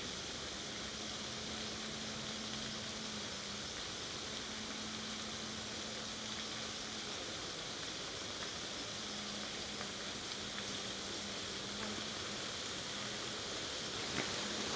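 Steady outdoor background hiss, with a faint low hum that fades in and out several times.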